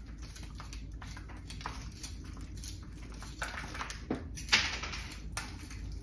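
A small root rake combing loose soil out of a ficus ginseng bonsai's root ball: scattered soft scratches and crumbling soil, a little louder about three and a half and four and a half seconds in.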